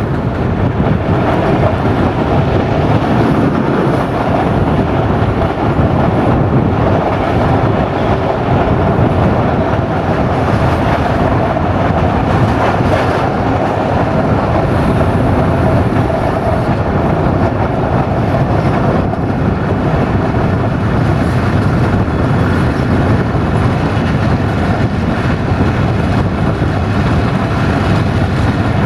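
ADH11 diesel railcar running at speed, with a steady, even noise of engine and wheels on rails.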